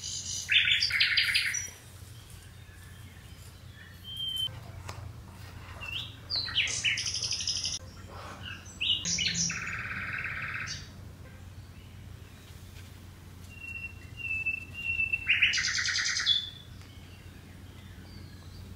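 Bird-like chirping in rapid, pulsed bursts every few seconds, over a faint steady low hum.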